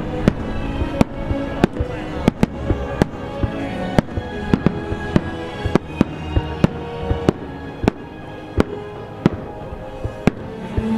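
Aerial fireworks bursting one after another, sharp bangs about twice a second, over music playing.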